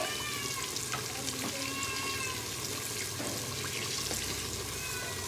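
Pieces of stingray frying in hot oil: a steady sizzle with fine crackling, the fish nearly done.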